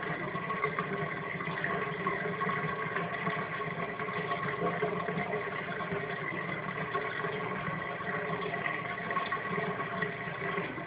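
Bathtub drain taking water down the pipe: a steady, droning rush with several steady tones.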